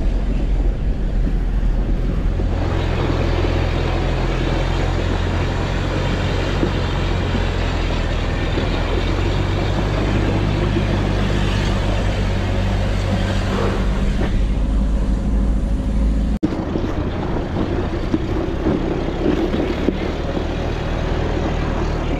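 An off-road 4x4's engine runs steadily on the move, with rough road noise over it. The sound changes abruptly about two-thirds of the way through.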